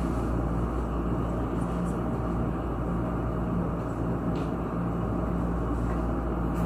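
Steady low hum and rushing background noise of the room, with a faint click about four and a half seconds in.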